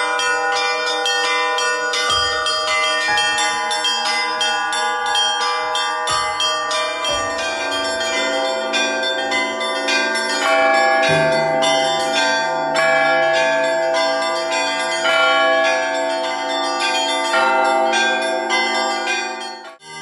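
Orthodox monastery bells being rung together: rapid, dense chiming of small high bells, with larger, lower bells joining about a third of the way in and a deep bell sounding from about halfway. The ringing breaks off briefly just before the end.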